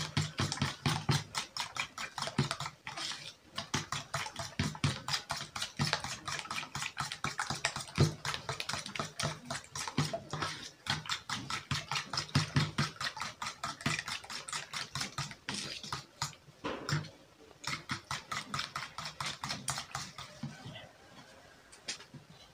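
Eggs being beaten by hand with a spoon in a plastic bowl: quick, steady clicking and tapping of the spoon against the bowl, several strokes a second, stopping near the end.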